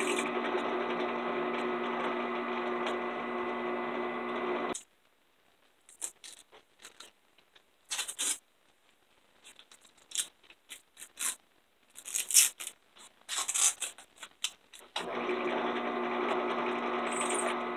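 Benchtop drill press motor running steadily while pin holes are drilled through a knife tang and taped-on oak handle scales. It shuts off abruptly a little before five seconds in, leaving about ten seconds of light clicks and knocks of the work being handled, then the motor runs again from about fifteen seconds in.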